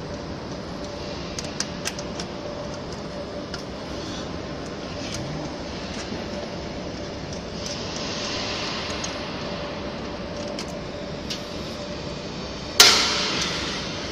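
Small sharp metal clicks of stainless steel clamp fittings being handled over a steady background hum. Near the end a sudden loud whoosh dies away over about a second.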